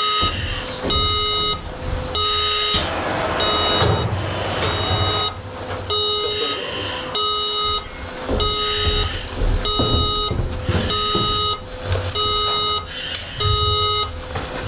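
Fire alarm sounder going off, an electronic tone pulsing on and off about once a second, signalling that the fire detection system has gone into alarm.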